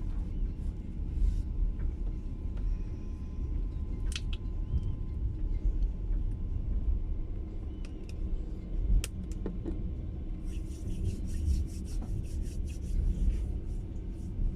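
Passenger train running, heard from inside the carriage: a steady low rumble with scattered clicks and knocks, and a quick run of clicks a little past the middle.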